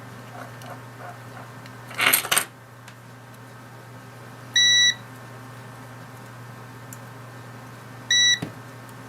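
A digital multimeter's continuity beeper sounds twice, each a short steady high beep of about a third of a second, signalling continuity as the key fob's press switch closes under the probes. About two seconds in comes a brief, loud rustling clatter.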